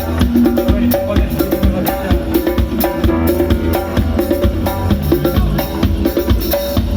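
Band music with drums and percussion keeping a busy, steady rhythm under a melodic instrument playing short notes.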